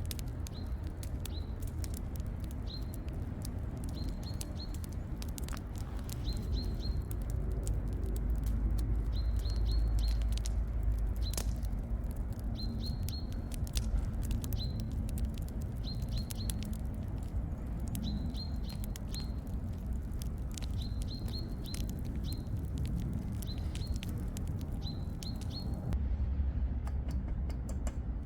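A small bird chirping over and over, short high notes in ones, twos and threes every second or two. There is a scatter of sharp crackles and a low rumble underneath. The chirps and crackles drop away near the end.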